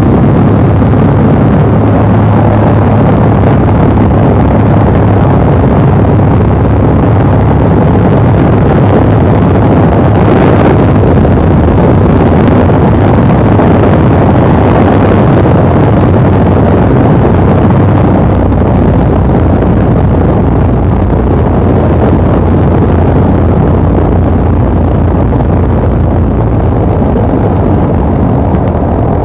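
Steady, loud engine-and-propeller drone heard inside the cockpit of an L-19 Bird Dog tow plane in cruise, with a constant low hum under rushing wind noise.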